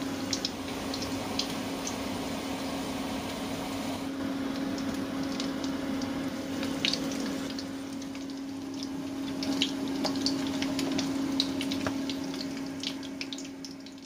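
Hot oil sizzling and crackling with many small sharp pops as tempe menjes fritters and small whole birds deep-fry in a wok, over a steady low hum.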